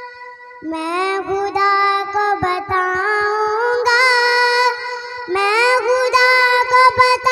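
Naat vocals: a high voice singing a wordless, gliding melody over a steady held drone. The voice comes in about half a second in, fades briefly near the end, and swells back in.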